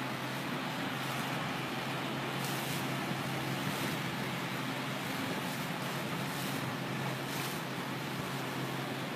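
A boat's engine running with a steady hum, under a constant rush of wind and water noise.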